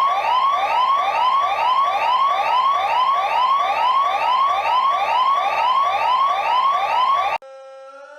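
Siren sounding a rapid rising whoop, about two and a half sweeps a second, each sweep climbing in pitch. Near the end it cuts off suddenly and a quieter siren with several tones begins slowly winding up in pitch.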